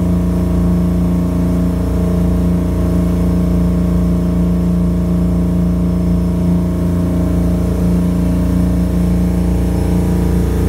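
A fishing boat's engine running steadily at cruising speed under way, a constant, unchanging drone.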